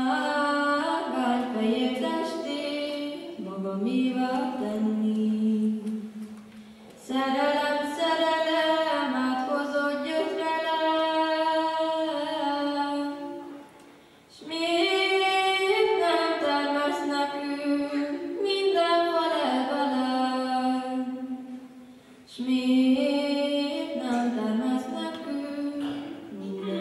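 A young woman singing a Kalotaszeg Hungarian folk song solo and unaccompanied, in four long sustained phrases with short breaths between them.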